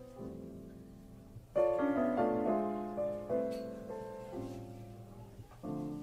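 Background piano music: a few soft notes, then a louder chord about a second and a half in, followed by a run of notes.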